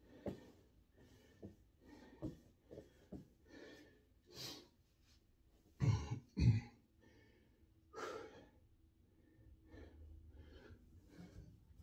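A man breathing heavily through short breaths and sniffs, with two loud coughs or throat clearings close together about six seconds in and another about eight seconds in.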